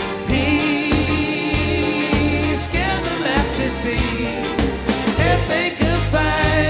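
Live pop-rock band playing between sung verses: bass guitar, keyboards and drums with voices singing, loud and steady.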